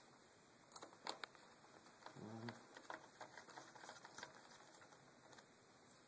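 Faint small clicks and ticks of tiny screws being set and turned into a laptop's graphics-card heat sink, with a few sharper clicks about a second in.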